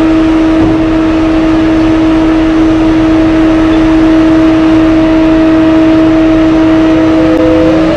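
Diesel-electric BelAZ-75710 mining dump truck running with a steady high whine over a rumble while its dump body lowers.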